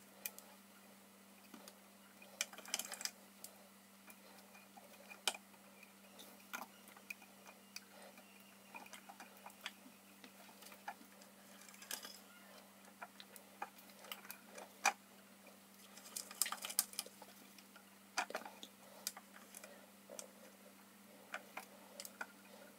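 Faint, irregular clicks and ticks as a shop-made tap is turned by hand in its T-handle wrench, cutting a thread into a tool-steel die blank, with a few quick clusters of clicks. A faint steady hum runs underneath.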